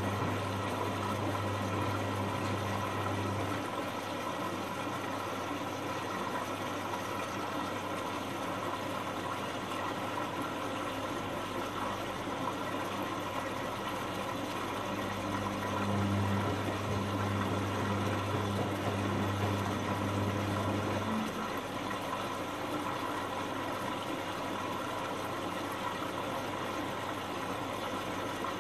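Sangiorgio S5510I front-loading washing machine tumbling wet sheets in its wash cycle. The drum motor hums for the first few seconds, stops, starts again about halfway through for several seconds, then stops, with steady water noise from the drum throughout.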